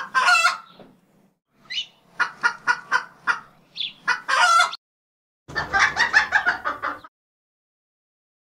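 Domestic hen clucking: a sharp call, then a run of short clucks about a third of a second apart with a couple of brief rising notes, and a longer drawn-out call at about four seconds. After a short gap comes a denser burst of clucking with a low rumble under it, lasting about a second and a half, which cuts off suddenly.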